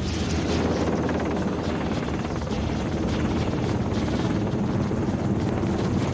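Black Hawk helicopter hovering, its rotor beating with a rapid, steady chop over a deep rumble.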